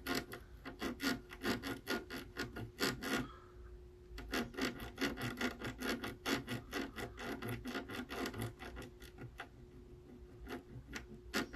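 Rapid back-and-forth scrubbing strokes on a console circuit board, several a second, in runs broken by a short pause about three seconds in, over a faint steady hum.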